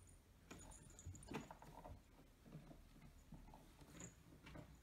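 Two American Shorthair cats play-fighting on a carpeted cat tree: faint, irregular thumps and scuffles of paws and bodies on the platforms, the loudest knock about a second and a half in.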